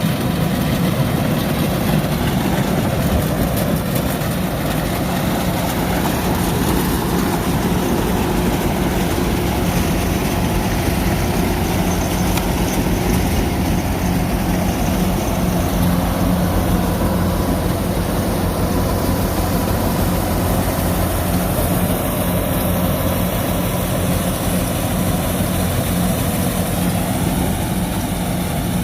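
Kubota DC-105X combine harvester running steadily as it harvests rice: a constant diesel engine drone with a low, even hum and the noise of the machinery.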